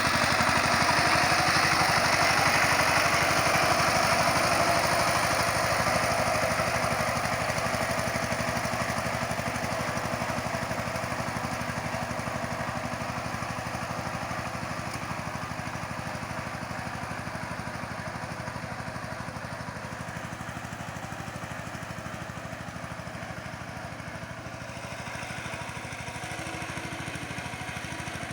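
Tractor engine running steadily under load while ploughing, growing gradually fainter through most of the stretch and a little louder again near the end.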